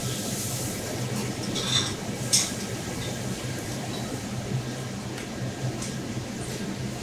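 Steady low hum of a working kitchen, with a few short, sharp clinks of utensils or dishes, the loudest about two and a half seconds in.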